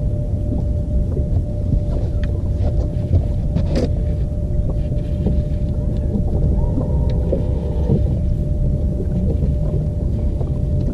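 Low, steady, fluctuating rumble of wind buffeting the microphone on an open boat deck, with a thin steady hum throughout and a few faint clicks.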